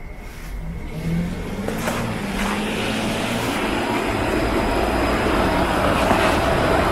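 Rumble and hiss of an approaching vehicle, building steadily.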